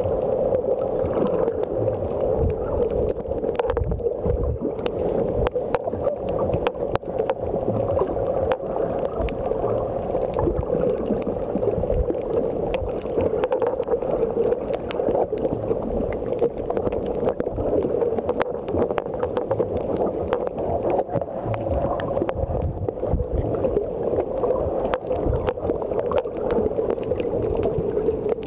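Underwater sound on a coral reef, picked up through a camera's waterproof housing: a steady, muffled rushing hiss peppered with many small clicks and crackles.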